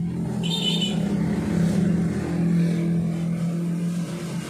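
An engine running with a steady hum that shifts slightly in pitch, with a short light metallic clink about half a second in.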